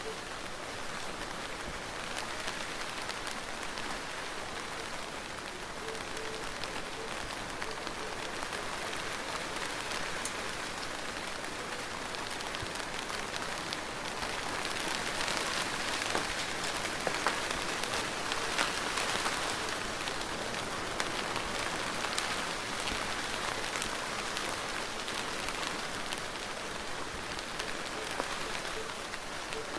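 Steady rain falling: an even hiss with scattered sharp drop hits, swelling somewhat louder about halfway through before easing back.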